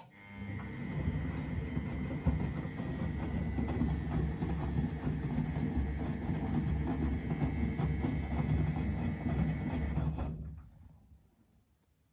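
Miele Novotronic W925 washing machine's motor turning the drum for about ten seconds: it starts with a click and a quick run-up, rumbles with a faint steady whine, then coasts to a stop.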